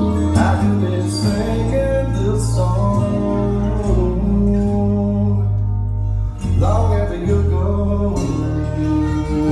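Background music: a song with acoustic guitar, in a stretch between sung lines.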